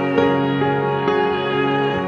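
Slow, gentle instrumental background music of long held notes, with new notes coming in twice.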